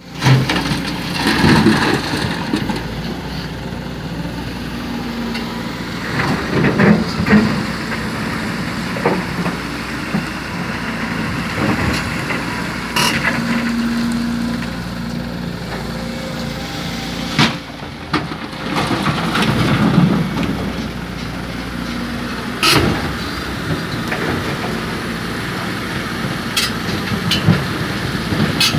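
Excavator diesel engine working steadily under load while loading soil into a dump truck, with rumbling swells of soil dropping from the bucket and several sharp knocks of metal.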